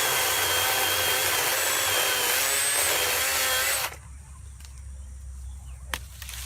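Greenworks 40-volt cordless electric chainsaw running under load, its motor whine wavering as the chain cuts through cedar wood, then cutting off abruptly about four seconds in. A single sharp click comes near the end.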